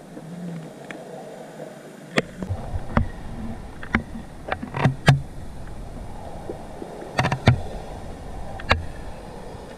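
Underwater sound heard through a camera's waterproof housing: a dull, muffled background broken by irregular sharp clicks and knocks, about nine in all, with two quick pairs in the middle.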